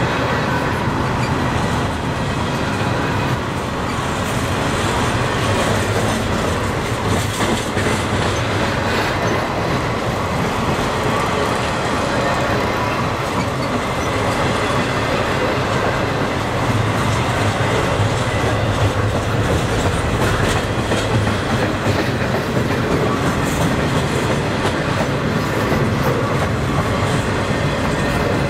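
Double-stack intermodal freight train's loaded well cars rolling past, a steady loud rumble and clatter of steel wheels on the rails.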